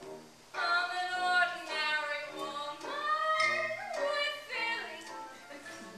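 A woman singing a show tune with instrumental accompaniment. Her voice comes in about half a second in, with long held notes and a sliding phrase midway.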